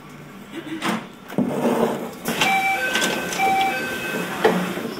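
Train door chime on a Keio Inokashira Line 1000 series car: two identical short beeps about a second apart, among knocks and clatter from the sliding doors and car body as the doors get ready to close at a station.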